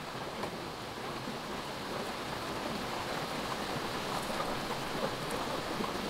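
A small mountain stream running over rocks in a shallow cascade: a steady rush of water.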